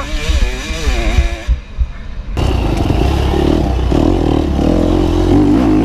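Dirt bike engine running under throttle on a rough trail, with the bike clattering over the ground. About two seconds in, the engine note jumps abruptly to a loud, steady drone.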